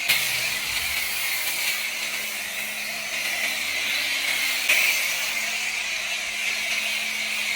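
High-pressure washer spray hissing steadily, with a low steady hum from the pump motor underneath; the spray starts abruptly and swells briefly a little after halfway.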